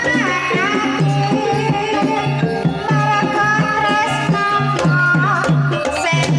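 Banyumasan gamelan music playing a tayub gending, with a regular hand-drum pattern under a sustained melody line that slides in pitch near the start.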